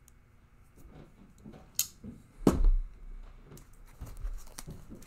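A package being unpacked by hand: rustling and tearing of paper packaging with scattered light clicks, and one louder thump about two and a half seconds in.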